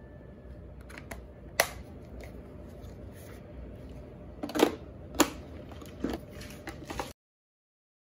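A few sharp clicks and knocks, the loudest three spread over a few seconds, over a low steady hum. The sound cuts off abruptly about seven seconds in.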